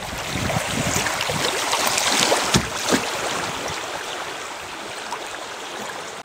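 River water rushing and splashing around a kayak's hull as it rides through a shallow riffle. It is a steady hiss that swells a little, with a few sharper splashes near the middle, and then slowly fades.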